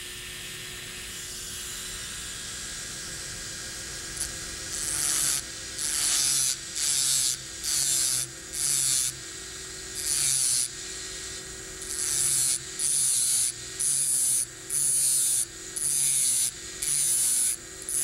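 Two electric dental handpieces running with a steady whine, one spinning a carborundum disc and the other a bur. From about five seconds in, the disc grinds a groove into the spinning bur in repeated short bursts, about one and a half a second, as it is touched to the bur and eased off.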